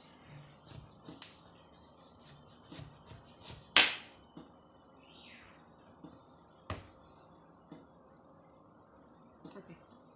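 A kitchen knife cutting through a large green gourd, with sharp knocks as the blade meets the cutting board, the loudest about four seconds in. Behind it, crickets give a steady high buzz.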